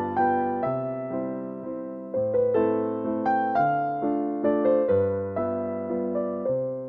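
Background music: a piano playing chords and a melody, each note struck and then fading away.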